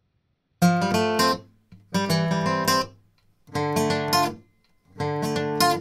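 Background music: acoustic guitar strummed in four short phrases of about a second each, with brief pauses between them.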